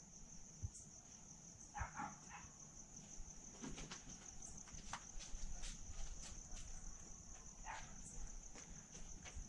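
Crickets chirring faintly and steadily in the night, with a few short, faint calls of some other kind at about two seconds in and again near eight seconds, and scattered light clicks.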